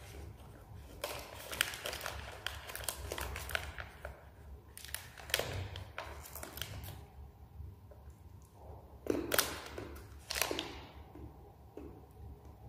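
Plastic snack wrapper crinkling and tearing as it is picked open by hand, in three spells of crackling.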